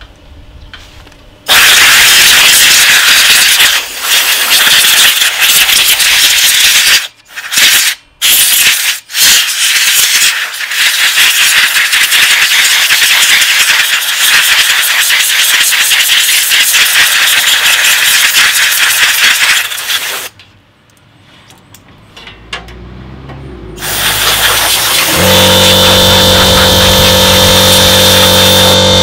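Compressed air blasting from a blow-gun nozzle into a PC case: a loud hiss in long bursts with a few short breaks, stopping about two-thirds of the way through. Near the end an electric air compressor starts up and runs with a steady hum.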